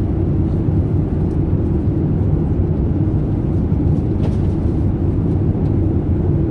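Steady low rumble of a Boeing 787 airliner's cabin in cruise: engine and airflow noise heard from inside the economy cabin.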